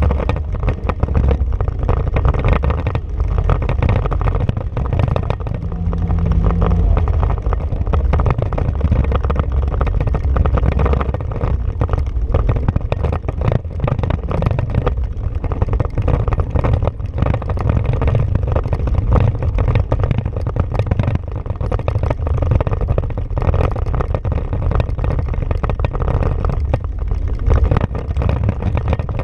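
Honda Pioneer 500 side-by-side's single-cylinder engine running steadily under way, with a low rumble and frequent rattles and knocks from the chassis over rough dirt.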